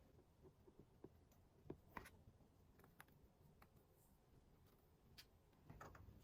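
Near silence: faint room tone with a few soft, scattered clicks and taps and a brief rustle near the end.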